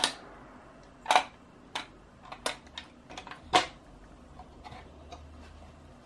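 Sharp metal clicks and clacks from an LGA1200 CPU socket's steel load plate and retention lever as they are pressed down and latched over the CPU. A quick irregular run of clicks, the loudest about a second in and another at about three and a half seconds, then a few faint ticks.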